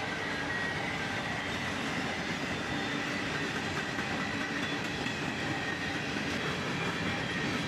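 Loaded covered hopper cars of a freight train rolling past at steady speed: an even rumble and rattle of wheels on the rails, with a faint steady high-pitched ring over it.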